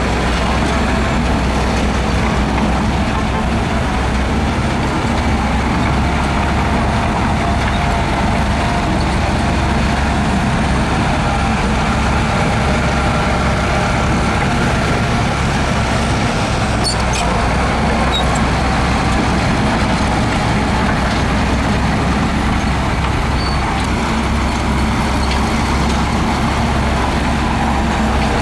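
Heavy earthmoving machine's diesel engine running steadily, with a couple of faint clicks about two-thirds of the way through.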